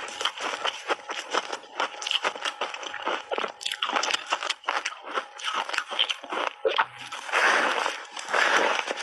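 Ice being bitten and chewed: a quick run of sharp, crackling crunches, then from about seven seconds in slower, longer grinding crunches that come about a second apart.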